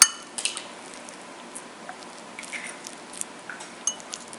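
A utensil clinks against a mixing bowl with a short ring at the start, then soft scattered taps and scrapes as banana bread batter is mixed.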